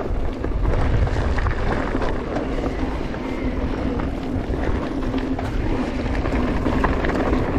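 E-mountain bike riding along a rough trail. Wind rumbles steadily over the microphone, with tyre noise and scattered clicks and rattles from the bike.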